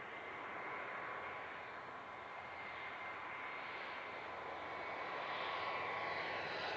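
Large airliner's engines as the aircraft passes, a steady rushing noise with a thin whine, growing gradually louder.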